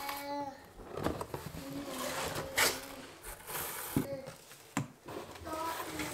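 Flocked artificial Christmas tree branches rustling and scraping as sections are pulled from their cardboard box, with cardboard flaps knocked and handled.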